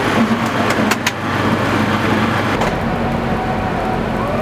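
City street noise dominated by road traffic: a steady rumble of vehicles with a couple of sharp clicks in the first second.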